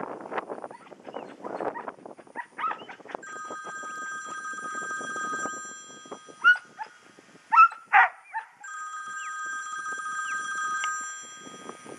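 Working dog barking three short times while it works cattle, over wind rustle on the microphone and a steady high ringing tone that comes and goes.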